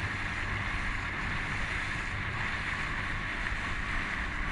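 Steady rush of wind on the microphone over water washing and lapping close by; no engine is heard.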